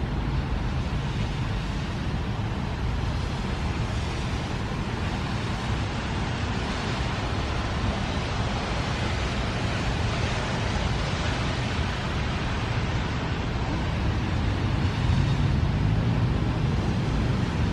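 Road traffic going by: a steady wash of car and tyre noise that swells around the middle, with a low engine hum near the end and wind on the microphone. No siren tone is sounding.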